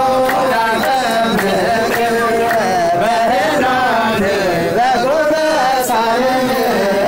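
A song playing: a singing voice holding and bending long melodic notes over instrumental accompaniment.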